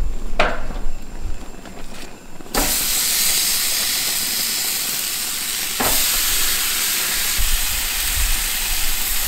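Marinated chicken pieces sizzling on the hot grates of a gas grill. After a quieter start with a couple of clicks, a loud, even sizzle begins suddenly about two and a half seconds in and gets louder again just before six seconds, as more pieces go on.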